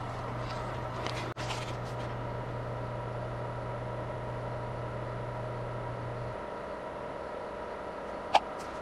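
Steady machine hum with a constant higher whine; its low part stops about six seconds in. A short squeak near the end.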